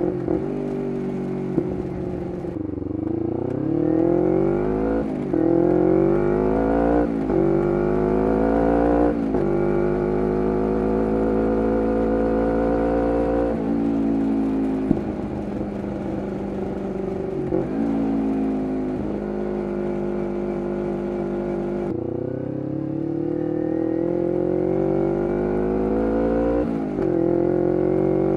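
2011 Kawasaki Ninja 250R SE parallel-twin engine through a full Graves race exhaust, accelerating hard through the gears: the pitch climbs and breaks at upshifts about 5, 7 and 9 seconds in. It then holds a steady speed, eases off with an uneven lower note, and accelerates again with another upshift near the end.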